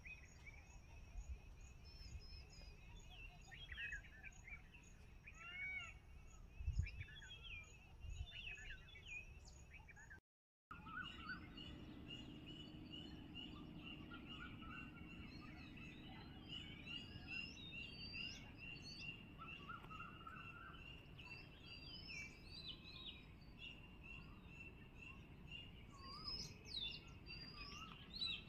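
Several wild birds chirping and calling, many short, varied chirps and whistled glides overlapping. A low thump about seven seconds in, a brief gap in the sound a little after ten seconds, and after it a steady high tone under the calls.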